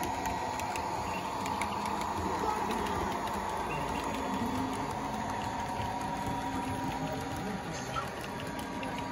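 Proto 48 O-scale model diesel switcher and its freight cars running along the track: a steady mechanical hum and whine with a few light ticks.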